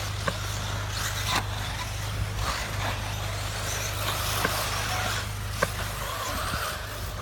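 1/8-scale electric off-road RC buggies racing on a dirt track: motor and tyre noise, with a few short sharp knocks, over a steady low hum.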